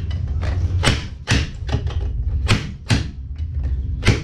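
Fork seal driver repeatedly knocking a fork seal down into a Harley-Davidson fork slider: a series of short thumps, roughly two a second and unevenly spaced, over a steady low hum.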